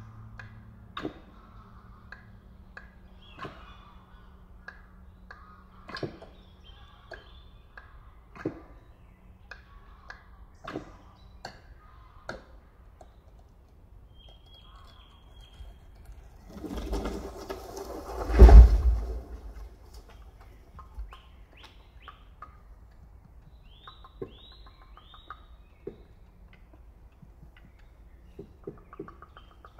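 Layered forest soundscape played over speakers: bird chirps and scattered sharp knocks, then a swelling rush that ends in one loud low boom about two-thirds of the way through.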